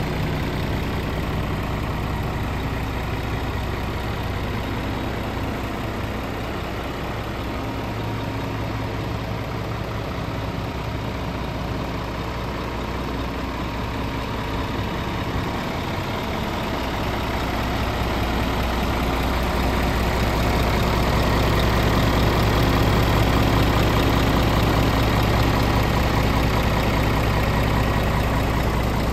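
Scania R450 truck's 13-litre inline-six diesel engine idling steadily, growing a little louder in the second half.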